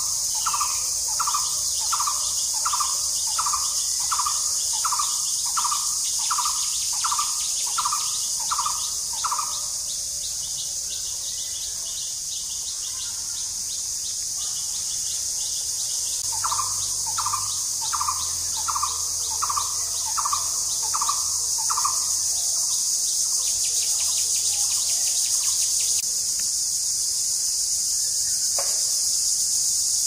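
Blue-throated barbet calling: a steady series of repeated notes, about three every two seconds, which stops about ten seconds in and starts again partway through before fading. A continuous high-pitched insect drone sounds throughout.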